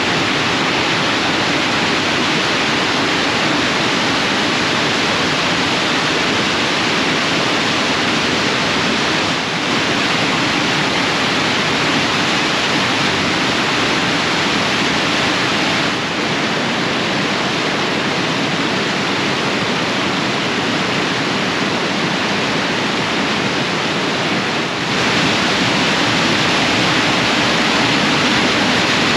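Waterfall on the River Ure in spate: a loud, steady rush of heavy water pouring over the falls, the river running high after days of rain.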